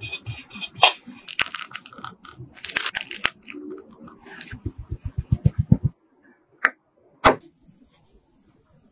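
Close-up sounds of frosting a cake: a metal offset spatula scraping and smoothing whipped cream frosting, then cream squeezed from a piping bag. There is a quick run of soft low thumps, and two sharp clicks near the end.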